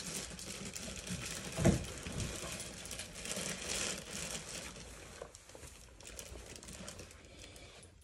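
Packaging crinkling and rustling as an animatronic clown head is unwrapped by hand, with a dull thump about one and a half seconds in.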